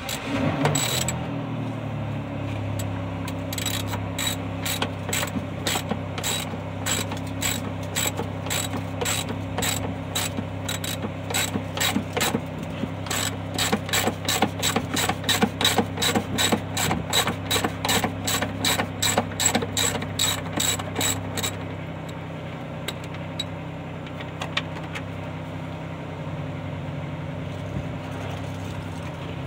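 Ratchet wrench clicking in a steady run of about two clicks a second, working under a car at the oil pan during an oil change. The clicks stop a little after two-thirds of the way in. Under it an engine runs with a steady low hum that settles in pitch after starting at the very beginning.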